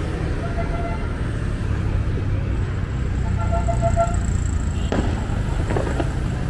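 Steady low rumble of city traffic, with two short steady-pitched tones about three seconds apart.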